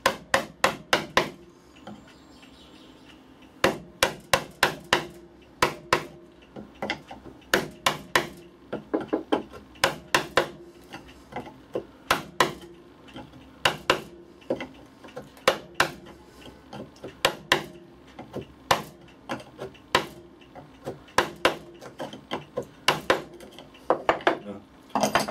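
Iron hammer striking a gouge to chop a round recess into a hardwood plane body. The strikes come in quick runs of three to six sharp blows, with short pauses between runs.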